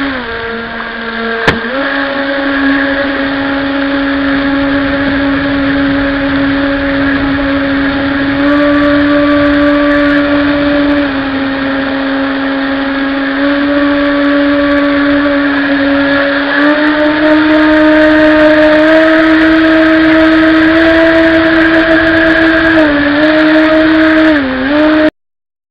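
Motor and water-jet drive of a radio-controlled jet boat running under throttle, heard from on board: a steady whine that dips in pitch at the start, steps up about 17 seconds in and dips twice near the end. There is a sharp click about a second and a half in, and the sound cuts off suddenly about 25 seconds in.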